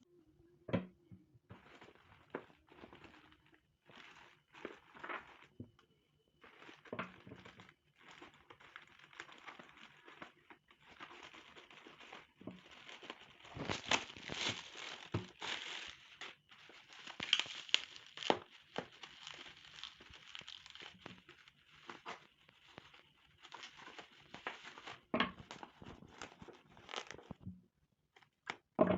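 Shipping packaging being handled and torn open by hand: irregular crinkling and tearing with sharp snaps and clicks, busiest in the middle.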